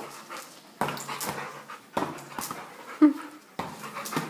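Two Labrador retrievers panting eagerly in quick, irregular breaths, with one brief whimper about three seconds in.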